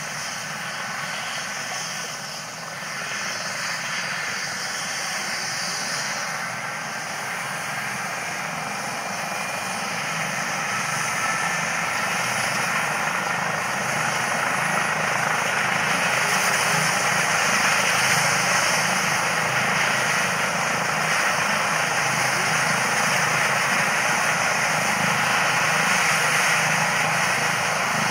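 Yellow ADAC rescue helicopter's turbine engines and rotor running on the ground before lift-off, a steady whine over rotor noise. It grows louder from about a third of the way in as power builds for take-off.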